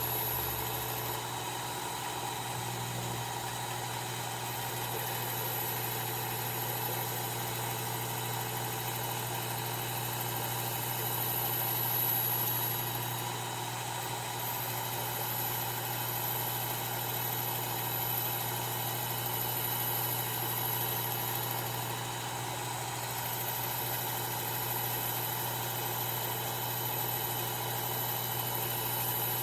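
Work Sharp electric belt sharpener running a 1000-grit belt on its blade grinding attachment, refining the edge of a Japanese utility knife: a steady motor hum. A high hiss on top drops out briefly three times.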